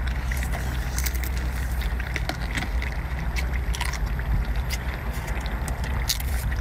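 Eating crab by hand: scattered sharp clicks and cracks of shell being broken and picked, with wet sucking of meat from the legs, over a steady low rumble.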